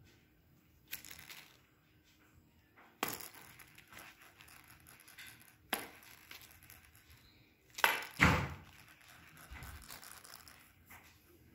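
Cat batting at a hanging string toy: a few scattered sharp clicks and taps, loudest as two close knocks about eight seconds in, the second with a dull thud.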